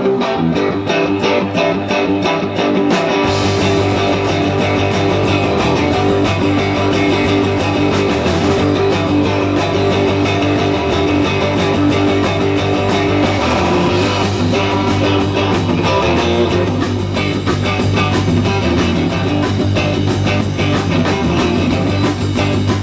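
Live rock band playing an instrumental passage led by strummed electric guitar, in an even rhythm; a low bass line comes in about three seconds in and the band plays on.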